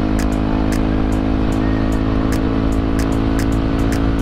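Yamaha WR155's single-cylinder four-stroke engine running through an aftermarket Gordon exhaust, holding a steady speed while the bike cruises, with wind noise underneath.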